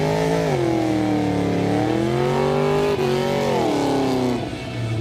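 Pontiac GTO's V8 engine revving hard during a burnout, its rear tyres spinning in thick smoke. The pitch climbs and drops several times, then the engine note falls away and quietens near the end.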